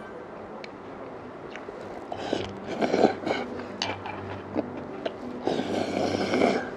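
Noodles slurped from a bowl: a few short slurps a little after two seconds, then one longer slurp of about a second near the end.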